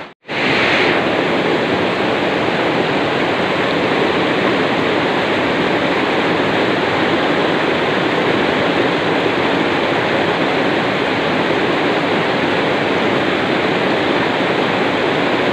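Shallow river water rushing over and between boulders in a small cascade: a loud, steady rush that starts after a split-second gap.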